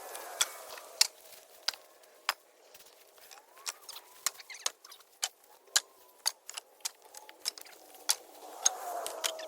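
Dry tree limbs and twigs cracking and snapping as a brush pile is picked up by hand. The sharp snaps come irregularly, about one or two a second, with lighter crackling between them.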